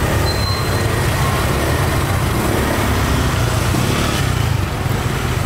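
Small motorbikes and scooters running at low speed close by, a steady low engine rumble.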